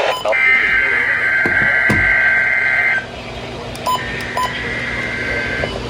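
Radio-received NOAA Weather Radio SAME header: screeching two-tone digital data bursts that encode a required weekly test. There are two bursts about a second apart, the first nearly three seconds long and the second shorter.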